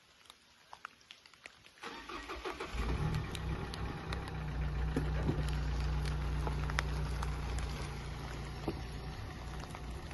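Faint scattered ticks, then about two seconds in a car engine is cranked and catches, settling into a steady idle.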